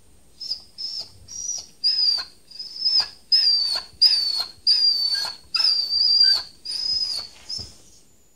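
Dog whining: about a dozen high, thin whines in a row, each under a second and mostly dipping slightly in pitch.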